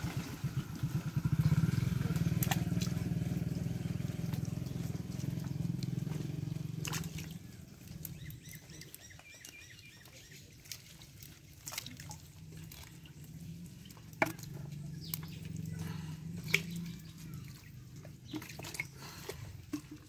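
An engine running with a low, evenly pulsing note that fades away over the first seven seconds and then lingers faintly, with scattered sharp clicks through the rest.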